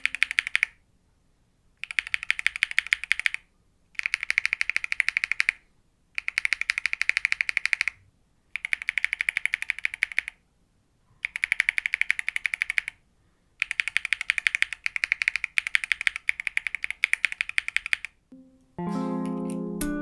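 Linear mechanical keyboard switches with nylon housings and a POM stem, pressed in quick runs of sharp clacks. Each run lasts about a second and a half, with short silent pauses between runs. Near the end, music with plucked, guitar-like notes comes in.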